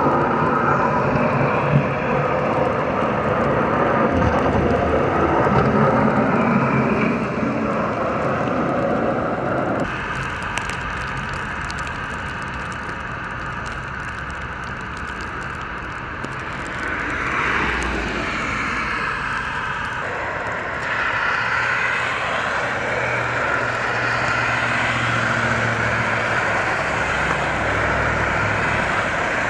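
Vehicle engine and road noise, running steadily and changing abruptly twice as the shots change. About halfway through, a sweep in pitch rises and falls as something passes.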